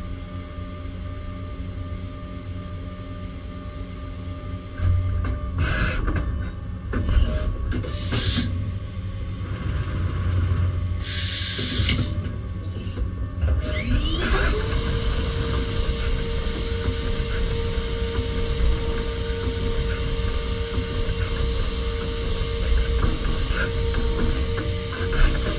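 CNC machining centre: a steady low hum with a few short hisses, then about fourteen seconds in the spindle spins up with a rising whine and holds a steady high-pitched whine at speed.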